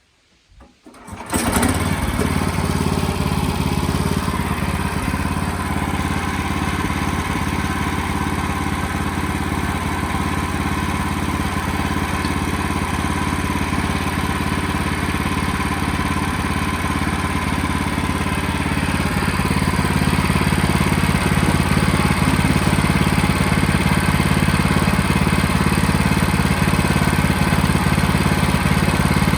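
Engine of a portable band sawmill running steadily under load during milling, cutting in abruptly about a second in and growing slightly louder about two-thirds of the way through.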